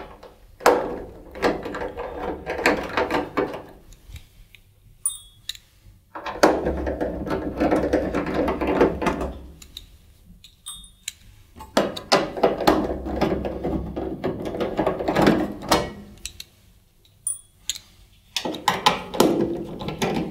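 Screwdriver undoing the screws in a tumble dryer's sheet-metal back panel, in four spells of quick clicking turns with short pauses between.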